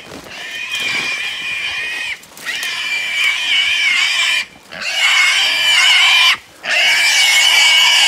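A wild hog squealing, caught and held by a catch dog. It makes loud, high-pitched, wavering squeals of about two seconds each, four in a row with short breaks between.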